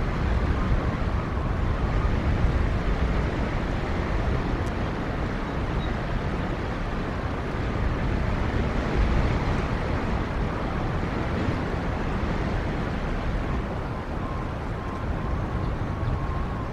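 Wind blowing across an outdoor nest-camera microphone: a steady rushing noise, heaviest in the low end, swelling and easing in gusts.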